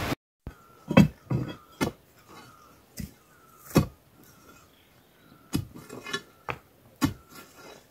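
A series of about nine sharp, irregular knocks and clinks, each ringing briefly, with quiet between them.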